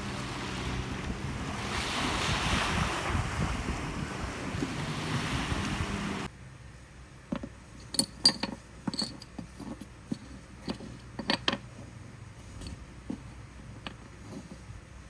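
Sea waves washing and wind buffeting the microphone, cut off suddenly about six seconds in. Then metal crown bottle caps clicking and tapping as they are handled on a tabletop, in scattered sharp clicks.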